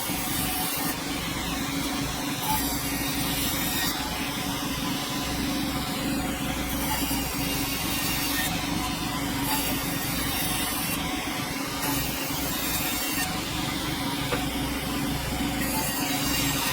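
Sawmill running steadily: engine and saw noise with a constant hum.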